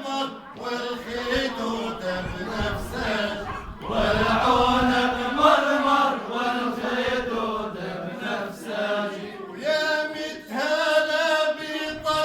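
A man singing a drawn-out melodic vocal line, unaccompanied.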